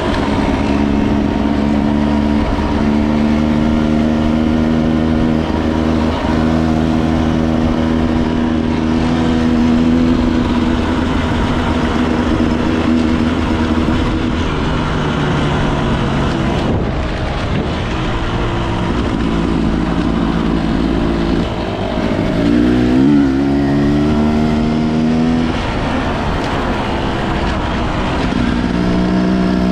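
Enduro dirt bike engine running under way, its pitch falling and rising with the throttle and a quick rev swoop a little past twenty seconds in, over a steady rushing noise.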